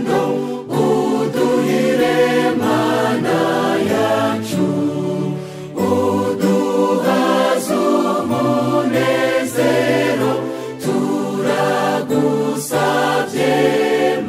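Choir singing a Kinyarwanda hymn in harmony, in phrases with short breaths between them.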